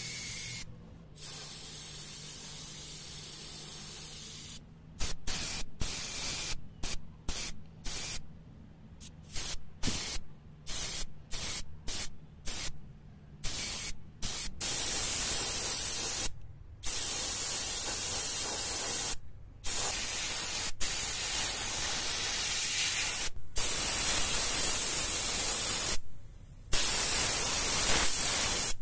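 Airbrush hissing as it sprays paint, first in many short bursts a fraction of a second long, then in longer steady passes of a few seconds with brief stops between them. A faint low hum sits under the first third.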